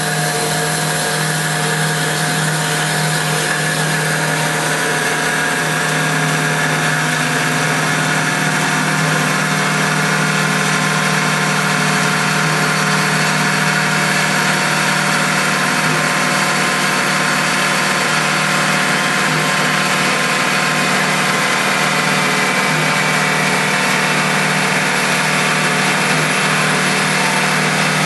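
Alligator HD400LR-H heavy-duty bandsaw, with a 34 mm blade, running through a cut in metal stock. It makes a loud, steady, even machine noise: a low motor hum under the higher sound of the blade cutting.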